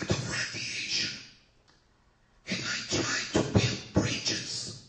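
A man's voice speaking in short phrases, with a pause of about a second, one and a half seconds in.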